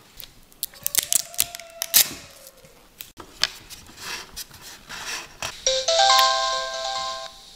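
Small plastic clicks and taps of a Reolink Argus PT Ultra security camera being handled and switched on, with a brief electronic tone about a second in. Near the end, the camera's small speaker plays a short start-up chime of several ringing tones sounding together.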